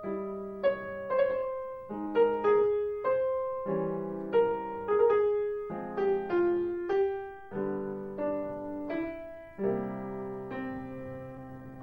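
Solo piano music: a moving melody over chords, each struck and then dying away, ending on a held chord that fades out.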